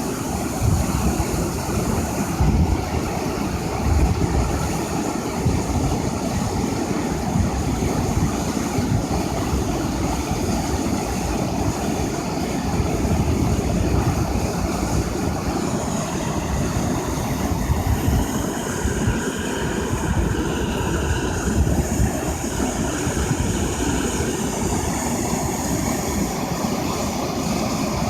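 Waterfall and river water rushing over rock: a steady, loud rush with an uneven low rumble beneath it.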